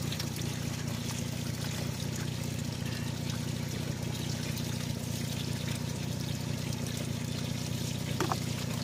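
Water draining out of a vehicle's floor drain holes in several thin streams, trickling and splashing onto mud, over a steady low hum.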